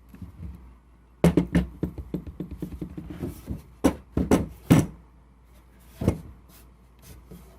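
Wooden knocks and clatter as a freshly cut 2x4 board and tools are handled: a rapid run of small clicks followed by several sharp knocks, then one more knock a little later.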